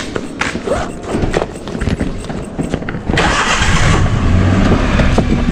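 Scattered knocks, then about three seconds in a vehicle engine starts and keeps running.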